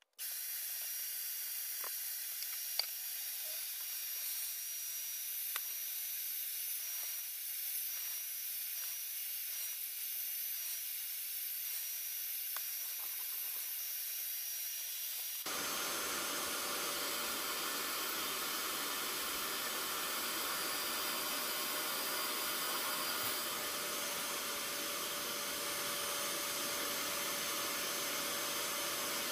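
Bissell SpotClean Pro carpet extractor's motor running steadily, a hiss with a faint high whine at first. About halfway through it jumps suddenly to a louder, fuller run with a steady hum as the hand tool works the carpet mat.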